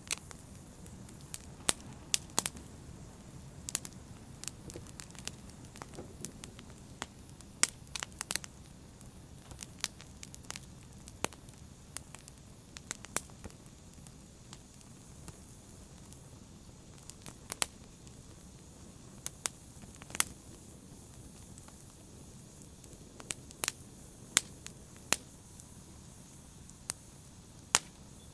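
Wood fire burning in a fireplace: a steady soft rumble and hiss with sharp pops and crackles at irregular intervals, several a few seconds apart.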